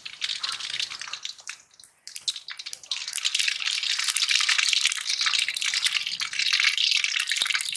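Mustard seeds spluttering in hot oil in an iron kadai: a dense crackle of tiny pops. It thins briefly about two seconds in, then builds thicker and louder.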